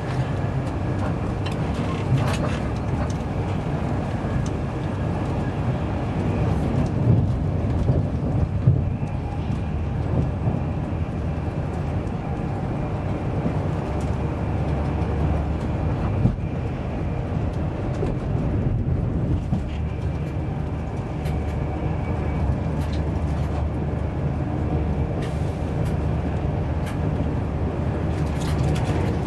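Steady running rumble of an InterCity 225 passenger coach at speed, heard inside the saloon: wheels rolling on the rails, with a few sharp clicks and knocks.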